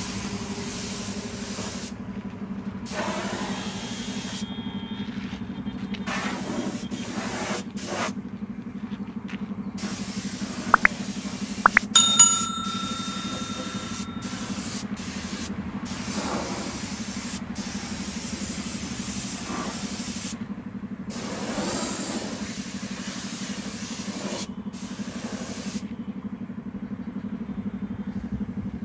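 Compressed-air paint spray gun hissing in on-off bursts while spraying paint, over a steady low hum. About eleven to twelve seconds in, a few sharp metallic clinks ring out.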